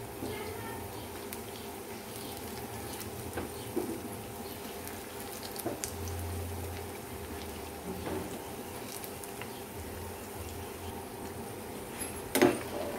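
Onion ring pakodas deep-frying in a pan of hot oil, the oil sizzling steadily, with light clinks of a steel slotted spoon as they are turned and a louder clatter of the spoon against the pan near the end.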